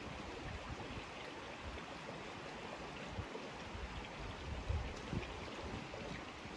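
River water running steadily over a stream bed, with a few brief low thumps on the microphone.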